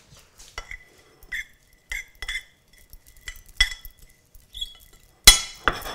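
Metal fork clinking and scraping against a ceramic bowl while stirring chopped herbs: a string of light clinks, roughly one a second, each ringing briefly, with the loudest clink near the end.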